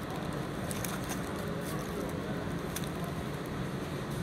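Steady room hum from ventilation, with a few soft crinkles of a paper sandwich wrapper being handled.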